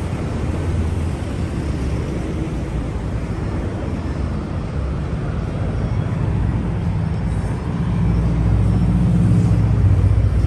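Steady low rumble of street traffic, growing louder about eight seconds in.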